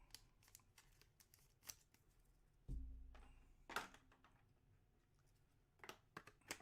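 Faint handling of trading cards and their packaging: soft rustles and clicks, a dull thump about three seconds in, and a few quick clicks near the end.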